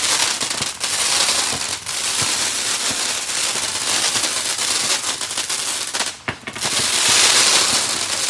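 Consumer fireworks going off with a dense, continuous crackling and hissing, many tiny pops packed together. The sound dips briefly about six seconds in, then comes back as loud as before.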